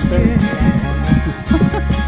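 Background music: a slow worship song with sustained bass and a steady drum beat.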